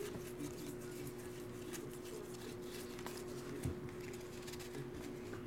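Faint handling of baseball trading cards: cards sliding and ticking against each other as they are sorted and set down on a stack, with one soft tap a little after the middle. A steady low hum runs underneath.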